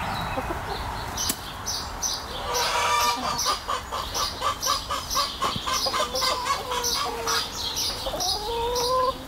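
Hens clucking in a quick, even run of about three clucks a second, ending in a longer call that rises in pitch.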